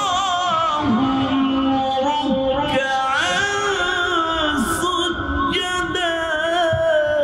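A man's melodic Quran recitation (tilawat), sung into a microphone in long held notes that slide and waver in pitch.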